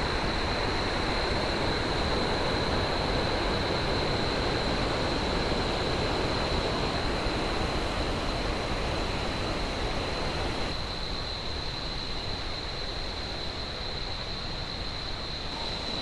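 Waterfall cascades rushing steadily, with a steady high-pitched whine above the roar. About eleven seconds in the sound abruptly becomes quieter and duller.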